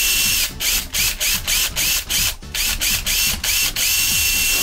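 Power drill with a 7.5 mm bit run in reverse, its trigger blipped in quick bursts about five a second, each a short rising whine, then held in one steady whine near the end. The backwards-turning bit is rubbing a 3D-printed hole slightly wider for a friction-fit DC input jack.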